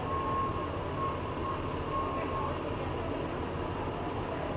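Steady rumble of bus engines idling, with a faint thin whine that comes and goes during the first couple of seconds.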